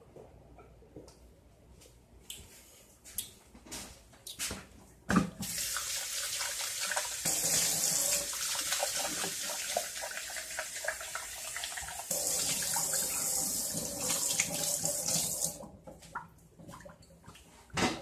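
Kitchen tap running into a sink for about ten seconds, starting with a knock about five seconds in, its splash changing twice before it stops. A few knocks and clatters come before and after it.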